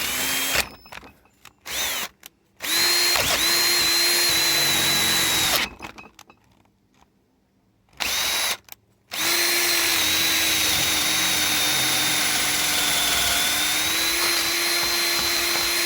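Electric drill running in repeated starts and stops: a brief run, a short blip, a run of about three seconds, another blip, then a long steady run of about seven seconds. The bit is being worked back and forth through the end of a broken bolt in a small-block Chevy cylinder head, where it tends to stop and catch.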